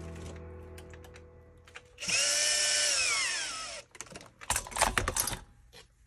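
Makita cordless drill/driver turning a chassis screw with a hex bit: the motor winds down at the start, runs again for about two seconds from about two seconds in, and drops in pitch as the trigger is let go. A burst of clattering knocks follows as the drill is set down on the workbench, then a few light clicks.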